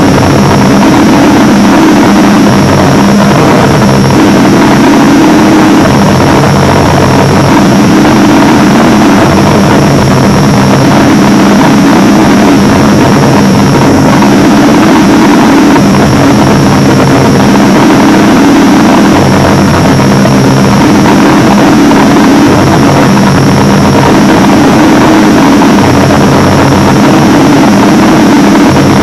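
Fictional emergency alert system alarm blaring at full loudness: a harsh, dense drone with a steady high whine, its low tones shifting pattern every few seconds.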